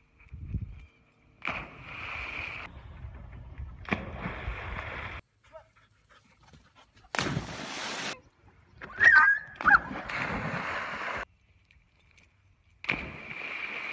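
A dog running through grass and leaping into a pond, in short clips cut one after another: bursts of rushing, splashing noise, and two loud high whining yelps from the dog about nine seconds in.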